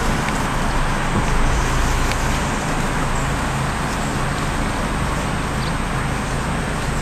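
Car engine running steadily at low revs with a low hum and light road noise, heard from inside the cabin as the car reverses slowly into a parking space.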